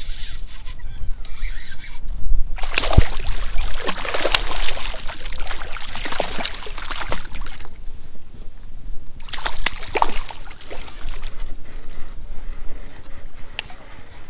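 Water splashing and sloshing around a kayak in two rough surges: a long one a couple of seconds in and a shorter one about ten seconds in, with sharp clicks among them.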